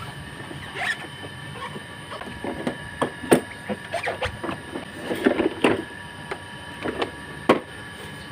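A cloth rubbing and wiping over the plastic housing of a vacuum cleaner, making irregular scuffing strokes, with a few sharp knocks and clicks as the housing is handled.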